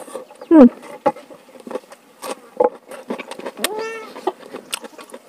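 Close-up eating sounds: chewing and lip-smacking clicks of rice eaten by hand. A short falling cry, the loudest sound, comes about half a second in, and a cat meows once about four seconds in.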